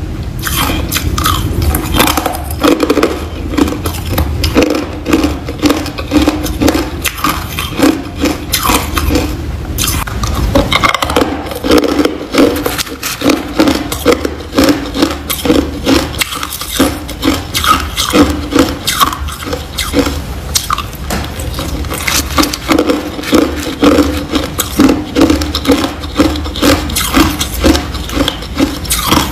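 Hard ice chunks being crunched and chewed close to the microphone: a dense run of crisp cracks and crunches in a steady chewing rhythm.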